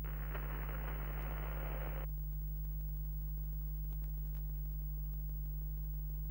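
Steady low electrical hum, with a crackle of static over it for about the first two seconds.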